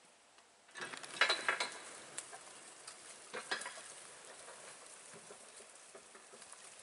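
A yoked bullock team walking past at close range: hooves crunching and snapping twigs and bark litter on the forest floor, with a light clinking of the draw chain. It starts about a second in, with the loudest crunches in the first few seconds.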